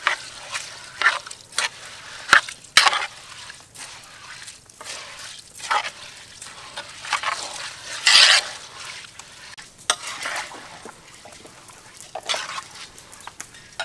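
A bare hand mixing wet rice grains with a green liquid in a large aluminium pot: irregular rustling and squishing of the grains, with a couple of sharp clicks a few seconds in.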